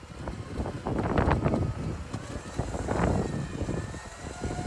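An electric winch running under load, reeling in cable to drag a truck stuck in deep snow, with a faint motor whine over uneven mechanical noise.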